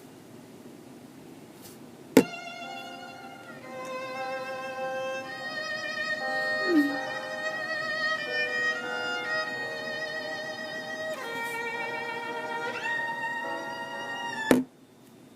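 A violin melody played back through a small phone speaker, which on this Blackberry Bold 9900 shows the sound working again. It starts with a sharp click about two seconds in and cuts off with another click near the end.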